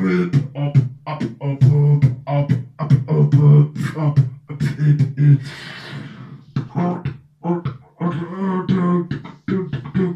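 Beatboxing into a handheld microphone: rapid sharp percussive pops and clicks over a hummed low tone, broken about six seconds in by a breathy hiss before the beat picks up again.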